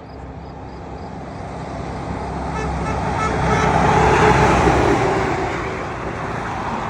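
A truck driving past on the road: its engine and tyre noise swell to a peak about four seconds in, then fade.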